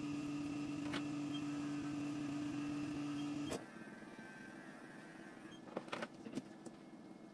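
Electric pet hair clipper running with a steady hum, switched off suddenly about three and a half seconds in; a few light clicks follow.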